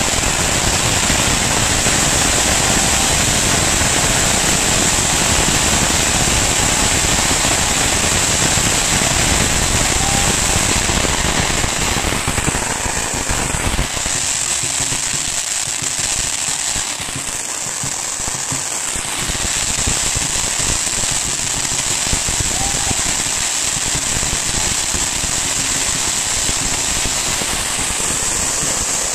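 Strings of Chinese firecrackers going off in a dense, continuous crackle of rapid bangs. The crackle thins for several seconds about halfway through, then builds back up.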